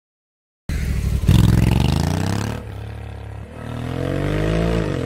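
Honda Africa Twin CRF1100's parallel-twin engine on its stock exhaust, accelerating hard: the pitch climbs, drops about two and a half seconds in as the gearbox shifts up, then climbs again. The stock exhaust is one the owner says keeps getting louder, about 110 dB at full throttle.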